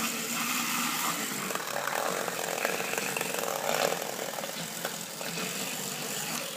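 Lego electric motor and gear train running steadily with a whirring, mechanical noise.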